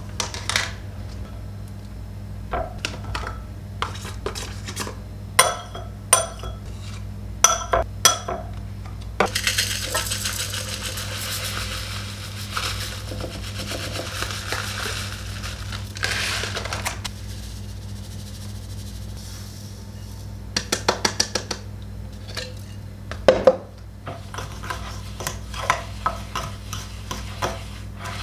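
Utensils clinking, knocking and scraping against a bowl while banana bread ingredients are mixed, with a stretch of steady scraping or stirring in the middle and a quick run of clicks later. A steady low hum runs underneath.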